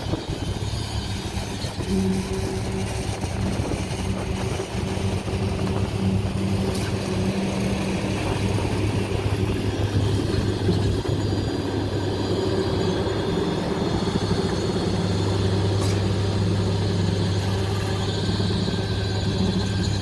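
Schwing SX 42M truck-mounted concrete pump running under load while pumping concrete: a steady low engine drone.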